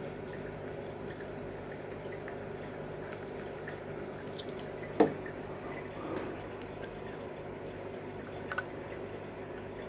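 Small handling sounds of 3D-printed plastic model parts being fitted and glued: a single sharp click about halfway through, with a few fainter ticks and rubs after it, over a steady low hum.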